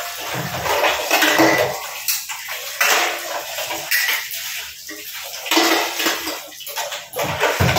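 Hand-washing stainless steel dishes at a sink: water splashing and running, with steel plates clinking and clattering as they are washed and set in the dish rack.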